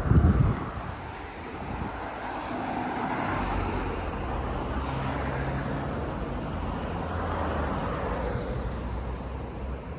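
Street traffic: a car's engine running close by, with a low thump right at the start.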